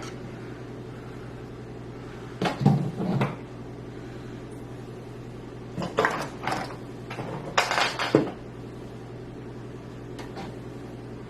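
Clacks and knocks of a drive and computer-case parts being handled while the drive is fitted into its mount, coming in three short clusters, with a steady low hum underneath.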